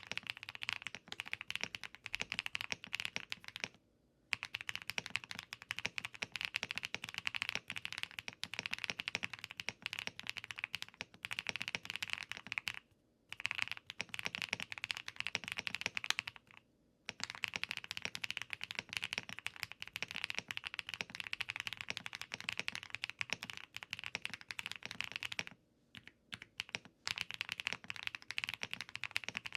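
Continuous typing on a Mode Sonnet mechanical keyboard with HMX Bleed light tactile switches and its foams still in: quick, clacky keystrokes. Brief pauses come about 4, 13 and 17 seconds in, and a longer pause of about a second and a half near the end.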